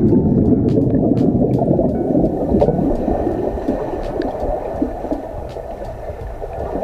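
Muffled bubbling and churning of river water heard through a camera held underwater. It is loudest at first and slowly fades.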